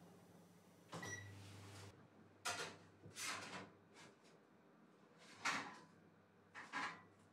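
A short electronic beep from a countertop oven's control panel about a second in, with a brief low hum. Then several light metallic clatters and scrapes as a fluted metal tart tin is gripped with a pan lifter and slid out on the oven tray.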